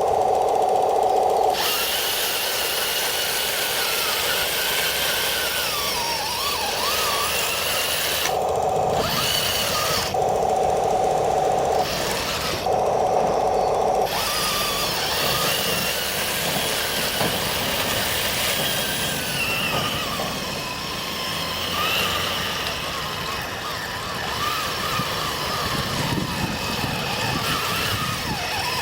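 RC M26 tank with metal tracks driving: its electric drive motors and gearboxes whine, rising and falling in pitch with speed, over a rattling clatter of the metal tracks. A steady mid-pitched hum cuts in and out several times in the first half.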